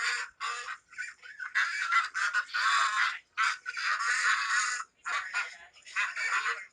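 Repeated harsh animal calls, one after another, some short and some lasting about a second.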